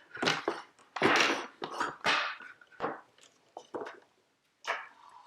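Plastic parts of a Nest Hello video doorbell and its angled mounting wedge being handled: a string of short knocks and scrapes, the loudest about one and two seconds in.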